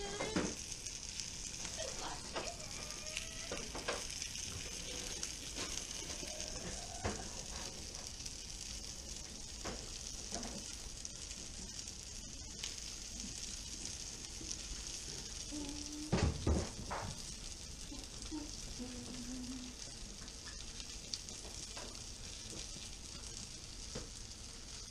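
Breaded porgy fillets frying in a pan, a steady high sizzling hiss throughout. Scattered clicks of handling over it, with a louder knock about 16 seconds in.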